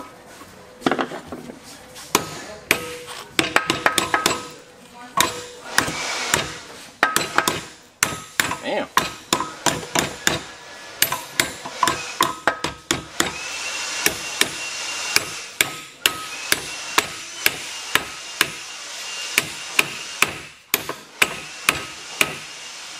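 A hammer striking repeatedly in an irregular series of sharp blows, often several a second. About halfway through a steady high whine and hiss join in under the strikes.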